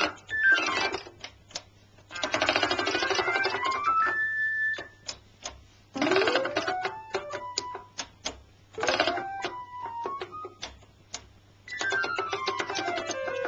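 Hohner Electravox electronic accordion played in fast glissandos, the hand sweeping up and down the keyboard so the notes step quickly in pitch, several runs ending on a held note. Sharp clicks come between the runs, over a steady low hum.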